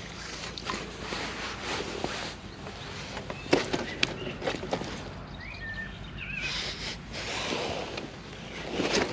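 Handling noise of a landing net being drawn in and worked with a netted carp inside: scattered clicks, knocks and rustling of the net frame and mesh, with a sharper knock about three and a half seconds in.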